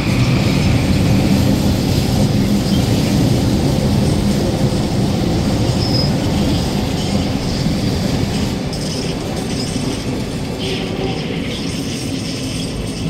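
A Vancouver SkyTrain train pulling away from a station platform: a steady rumble of the train running on the rails that slowly fades as it moves off.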